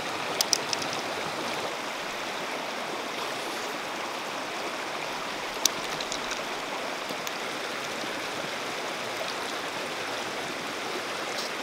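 Shallow river running over rocks: a steady, even rush of water. A few sharp clicks stand out above it, two about half a second in and one just before the middle.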